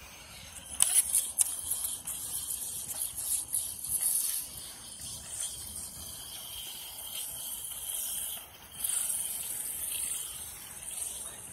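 Caster board wheels rolling over wet concrete: a steady hissing roll, with a few sharp clacks about a second in as the rider sets off.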